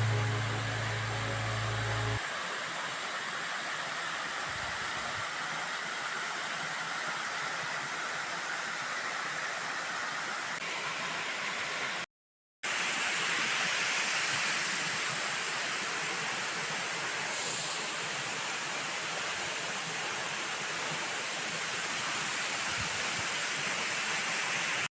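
Steady rushing of a waterfall, with the tail of a song's bass notes dying away about two seconds in. The water sound breaks off into silence for about half a second near the middle, then carries on.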